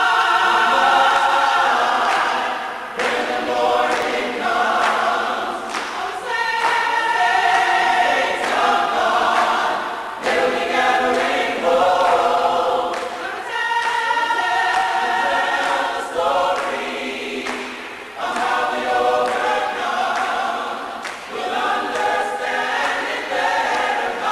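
A church congregation singing a spiritual together in chorus, many voices in harmony, in long phrases with brief breaks between them.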